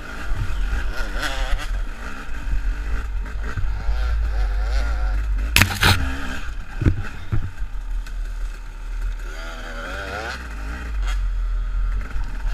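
KTM dirt bike engine revving up and down as it is ridden along a rough trail, over a heavy low rumble. A single sharp clack about halfway through is the loudest moment.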